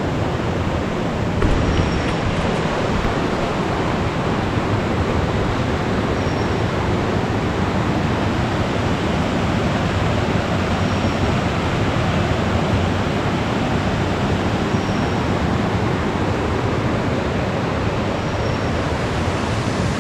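Forest stream babbling and rushing over rocks and small cascades, a steady wash of water. A faint, short, high bird call repeats about every four seconds.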